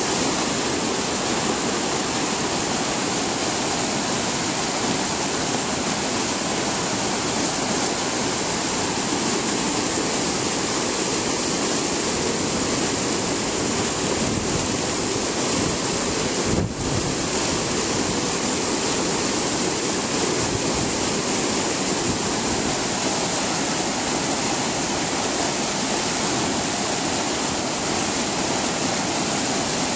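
River water pouring over a concrete weir into churning whitewater: a steady, even rush of falling water, with one brief dip in level a little past halfway.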